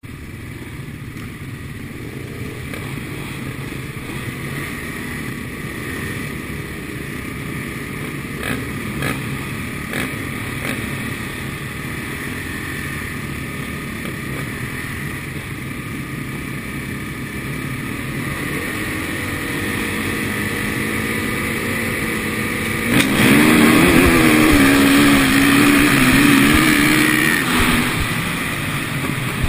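Supermoto motorcycle engines running on the starting grid, with a few sharp blips of the throttle. About 23 seconds in the engines go to full throttle as the race starts, the rider's own KTM 450 SMR single-cylinder four-stroke getting suddenly louder and rising and falling in pitch as it accelerates through the gears.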